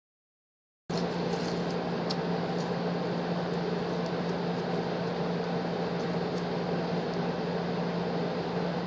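A steady mechanical hum with a hiss over it, starting abruptly about a second in and holding level, with a few faint clicks.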